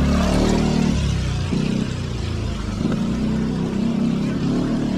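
A car on a rain-wet street: a low engine hum with tyres hissing on the wet asphalt, loudest at the start.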